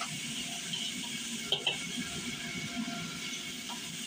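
Stir-fry of bok choy and shrimp sizzling and bubbling in a hot wok, with liquid boiling off in steam. A steel ladle clinks against the wok a couple of times about a second and a half in and once more near the end.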